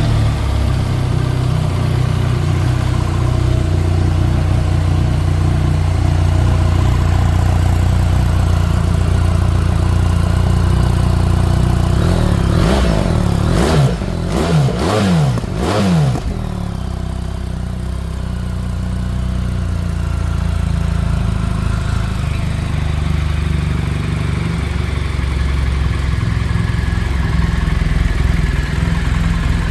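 BMW R 1300 GS Adventure's 1300 cc boxer-twin engine idling steadily. About four quick throttle blips rise and fall in pitch around the middle, then it settles back to idle.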